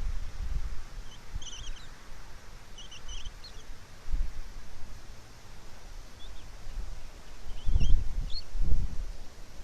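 Short, high bird chirps in small clusters, over outdoor background noise. Low rumbles come at the start, about four seconds in, and twice near the end, and these are the loudest sounds.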